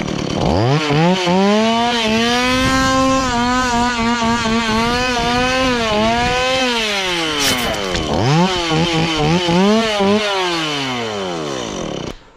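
Two-stroke chainsaw engine revving: it winds up and holds high, drops away about seven seconds in, revs up again, then winds down and cuts off abruptly near the end.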